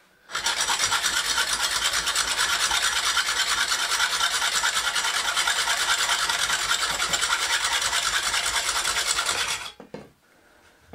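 Fine-toothed hacksaw sawing through a bamboo cane in fast, even back-and-forth strokes, a steady rapid rasping. It stops suddenly about a second before the end as the cut goes through.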